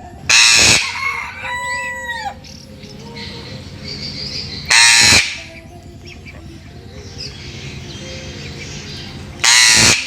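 Animal calls: three short, loud cries about four and a half seconds apart, with a quieter, clear call that drops in pitch at its end just after the first cry.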